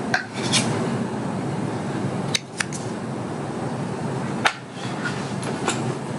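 Hands handling the belt's packaging: several short, sharp clicks and crinkles of box and wrapping over a steady background hiss.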